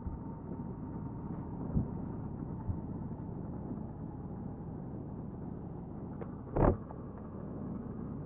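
Motorcycle engine running steadily with low road rumble, broken by a short thump about two seconds in and a louder brief knock about six and a half seconds in.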